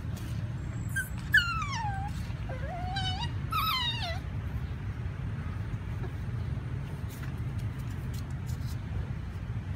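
Puppy whining in three short, mostly falling cries during rough play, over a steady low rumble, with one sharp click near the first cry.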